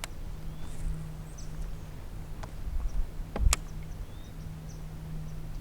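Faint, short high bird chirps over a steady low hum, with a sharp knock about three and a half seconds in.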